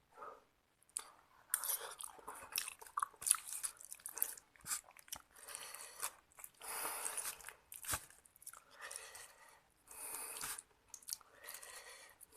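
Close-miked mouth sounds of eating seblak: chewing and biting in irregular bursts, some short and some about a second long.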